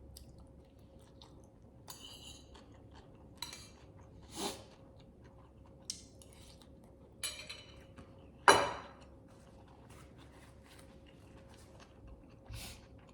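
Close-up eating sounds: intermittent chewing and mouth noises, with a sharp louder sound about eight and a half seconds in.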